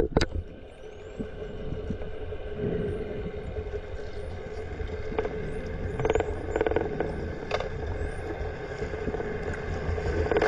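Spinner dolphins whistling underwater: many short rising whistles, with a few buzzing click trains around the middle, over a steady low hum.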